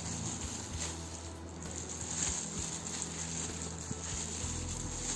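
Faint taps and clicks of a plastic facial steamer being lifted out of its packaging and handled, over a steady background hiss.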